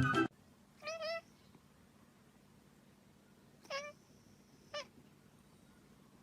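Music cuts off just after the start, then a cat gives short, high meows: one about a second in and two more close together past the middle.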